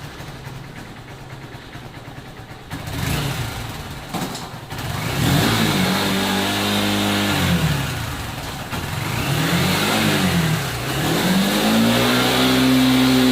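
Honda Unicorn's single-cylinder four-stroke engine idling, then revved three times: about five seconds in the revs rise and hold before dropping back, a short blip follows, and near the end the revs rise and stay high.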